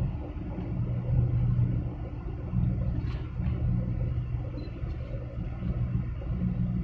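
Low, continuous engine rumble from a large container ship and the harbour craft working it out of port, wavering slightly in level.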